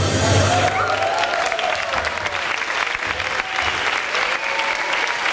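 The dance music stops about a second in, and a group applauds, with a few voices calling out over the clapping.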